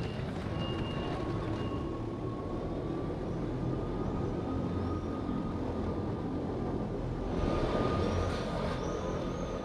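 Steady hum of an electric train with a thin, high, even whine over it, and a repeated beeping tone through the first two seconds. The noise swells briefly near the end.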